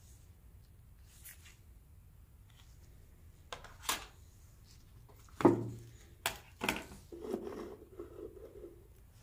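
Packaging being handled on a tabletop: a few light clicks and taps, one louder knock with a dull thud about five and a half seconds in, then a second or so of soft rubbing near the end.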